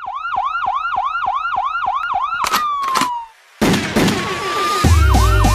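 Song intro built on a police-style yelp siren sound effect, wailing up and down about four times a second. About two and a half seconds in come two sharp hits and a falling swoop, then a brief gap and a crash. Near the end a deep bass beat comes in under the siren.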